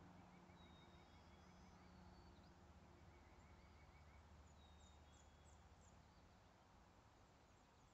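Faint dawn chorus of birds: scattered short chirps and quick repeated trills, over a low steady hum of distant traffic on the bridge.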